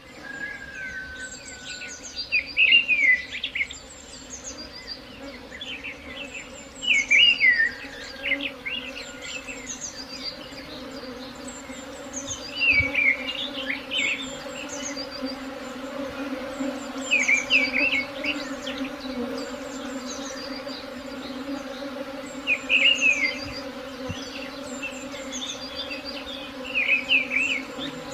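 Honeybee swarm buzzing as a steady hum. A bird sings a short, loud phrase about every five seconds over it, about six times in all.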